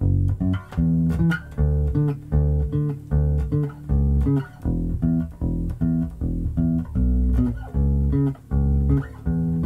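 Electric bass guitar in drop D tuning, plucked with the fingers, playing a fast riff of short, detached notes: rapid repeated pumped notes on each root with passing notes between them.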